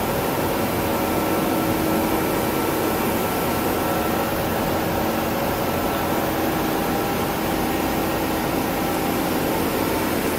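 Miyano BND-51S CNC turn-mill lathe running: a steady hum with a few fixed whining tones over an even rushing noise, unchanging throughout.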